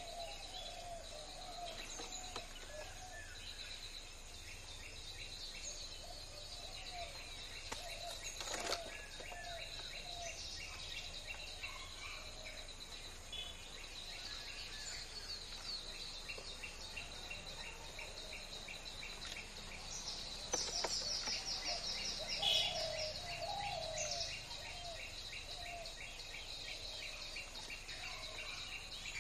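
Junglefowl clucking in short runs of low, wavering calls, over a steady high insect drone. Rapid high chirping swells about two-thirds of the way through, the loudest part.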